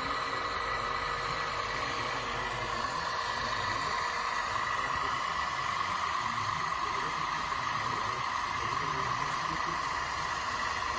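Radio-controlled scale construction machine running with a steady high whine over a low rumble.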